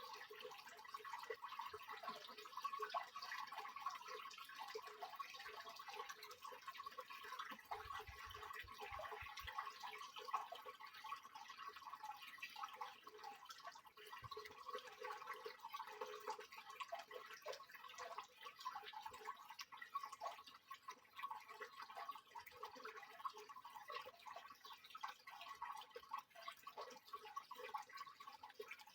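Faint, continuous patter of splashing and dripping water from a Soviet washing machine during the wash.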